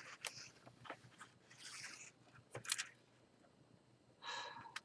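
Soft mouth clicks and breaths of a woman pausing between sentences, with a sharper click about two and a half seconds in and a short breath near the end.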